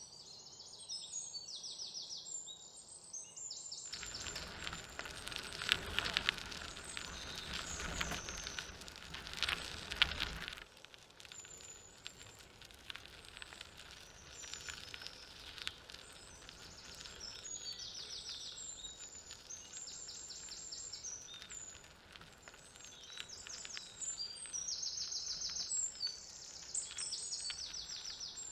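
Forest ambience with birds chirping, short repeated high calls that keep coming back. From about four seconds to ten seconds in, a louder stretch of rustling, crackling noise covers it, then the birds carry on alone.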